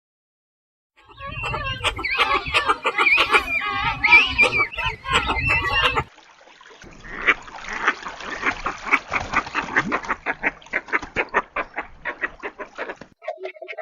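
Shorebird calls: a bout of overlapping, chattering calls for about five seconds, then a quicker run of short clipped notes, about five a second, that fades near the end.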